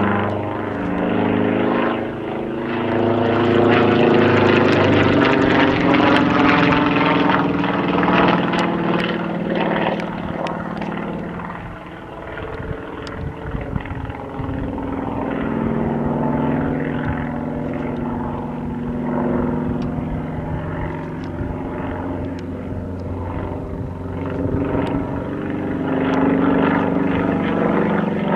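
Yak-50 aerobatic plane's nine-cylinder M-14P radial engine and propeller running overhead, pitch and loudness shifting as it manoeuvres. It is loudest in the first several seconds, fades a little before the middle, and swells again near the end.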